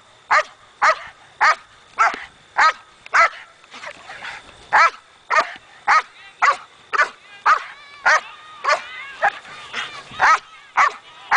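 Belgian Malinois barking at a decoy while straining on a back tie, sharp barks about two a second, with a short break about four seconds in.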